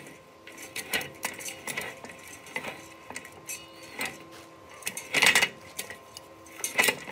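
Irregular light metallic clinks and scrapes of a hand tool working on a welded steel hammer head, with the sharpest strikes about five seconds in and again near the end.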